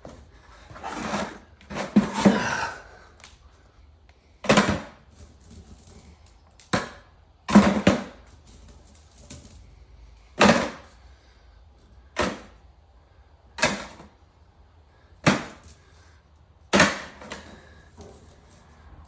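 Chopped-up pieces of scrap metal dropped one by one into a container, each landing with a sharp clunk about every one and a half to two seconds, after a busier clatter near the start.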